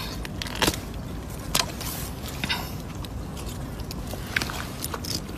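About half a dozen scattered short clicks and crackles over a steady background hiss.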